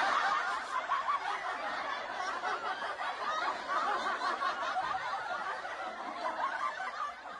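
A group of people laughing, many voices overlapping, steady throughout like a laugh track.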